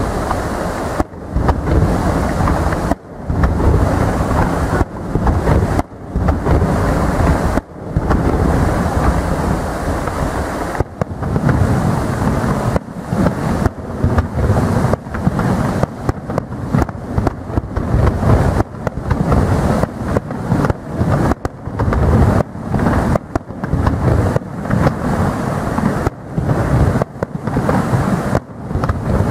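Aerial firework shells bursting in rapid succession, heard as a dense, continuous low rumbling barrage, with the sound dropping out briefly many times.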